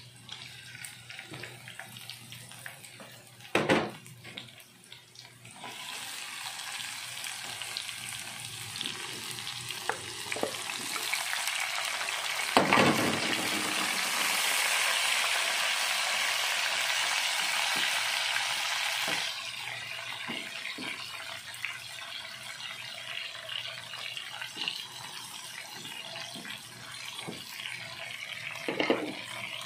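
Food sizzling in hot oil in a wok. About thirteen seconds in, the sizzle swells loud as sliced tomatoes go into the pan, holds for about six seconds, then settles back. A few knocks of the spatula against the pan, one near the start and one near the end.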